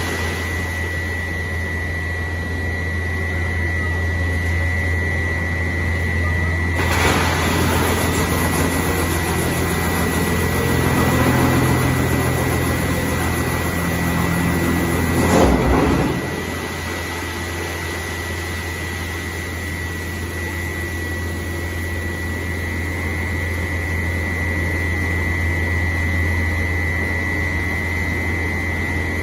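Drum wood chipper running steadily with a low hum and a constant high whine. The noise grows rougher and fuller from about 7 seconds in and settles back shortly after 16 seconds.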